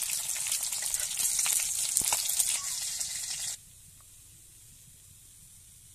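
Hot oil sizzling in a wok around fried fish steaks being lifted out, with a few sharp clicks of the spatula against the pan. The sizzle cuts off suddenly about three and a half seconds in, leaving faint room tone.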